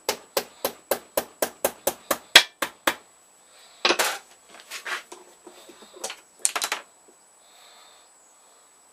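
Hammer blows on a thin metal spring strip clamped in a bench vise, bending its end round: about a dozen sharp metallic strikes at roughly four a second, stopping about three seconds in. About a second later comes a single louder clatter as a tool is put down on the bench, then a few light handling knocks.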